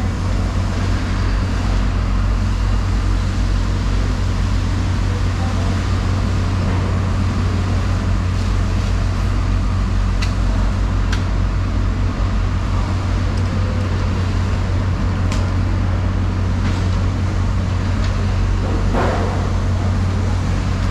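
Steady low hum under an even background noise, with a few faint sharp clicks in the middle and one short knock near the end.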